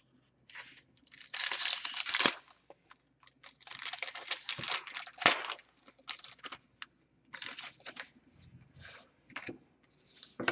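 A hockey card pack wrapper being torn open and crinkled by hand, in a series of irregular rustling bursts.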